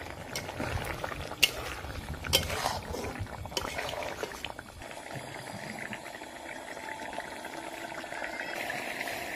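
Watery chicken and bottle gourd curry boiling in a kadai, bubbling steadily. There are a few sharp clicks in the first half, then the bubbling settles to an even sound.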